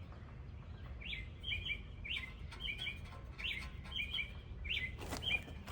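A songbird singing the same short phrase over and over, a rising note followed by two quick notes, about once every 0.7 seconds from about a second in, over a steady low background rumble. A single knock sounds near the end.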